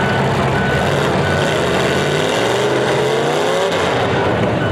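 Demolition derby car engines running, with one engine revving up, its pitch rising, past the middle. Faint short high beeps sound now and then.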